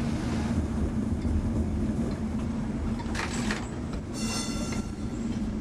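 Lisbon electric tram running on street track: a steady low motor hum over the rumble of the wheels. About three seconds in there is a brief hiss, and about four seconds in a short high-pitched squeal of several tones lasting under a second.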